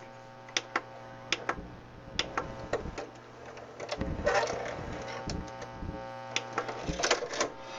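Scattered clicks and small rattles of a VCR tape-transport mechanism's levers, gears and motor pulley being pushed and turned by hand, with a short scraping rustle about four seconds in. A steady low mains hum runs underneath.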